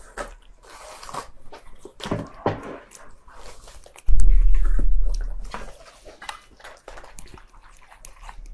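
Close-miked eating sounds: hands tearing apart sticky braised pork, with small wet clicks and squishes. About four seconds in a sudden loud low thump and rumble takes over, fading over about a second and a half.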